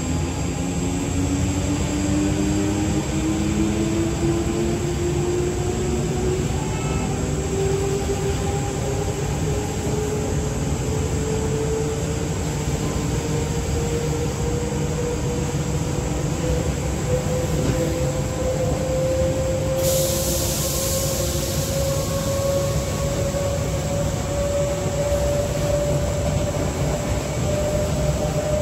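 Z20500 Transilien double-deck electric train heard from inside its motor car under hard acceleration: the traction motor whine rises steadily in pitch over a steady running rumble. About two-thirds of the way through, a high hiss comes in and keeps going.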